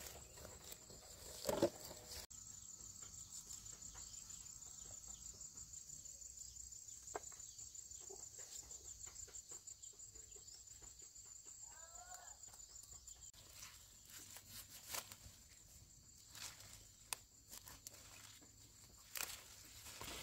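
Steady high-pitched insect chirring, with soft rustling of leaves and scattered small clicks and snaps as leafy greens are picked and cut with a knife.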